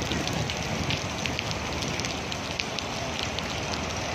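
Steady rushing noise of a river in flood running high after heavy rain, with many small scattered ticks of rain falling over it.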